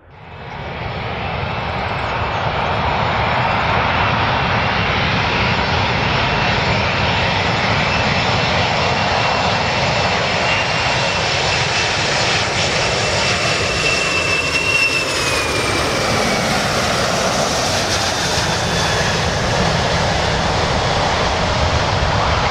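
Boeing 747-400's four turbofan engines on final approach: a steady jet roar that swells in over the first couple of seconds, with a high fan whine that slides down in pitch as the jet passes, about two-thirds of the way through.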